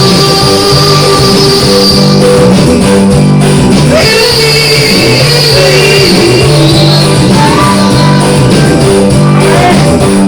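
Loud music with a singing voice, guitar and a steady beat.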